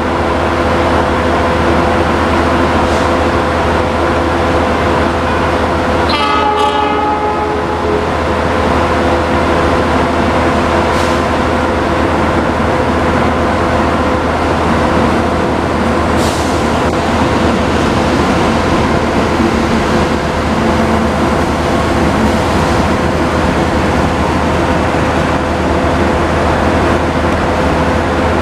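Diesel locomotive hauling a passenger train into the station, its engine running with a steady drone over the rumble of the cars on the rails. The horn sounds once, briefly, about six seconds in.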